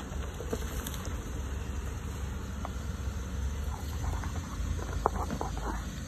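Jeep Wrangler engine running low and steady as it crawls over a rocky dirt trail, with tyres crunching over loose rock and dirt. The crunching and clicking grow busier near the end, with one sharp crack about five seconds in.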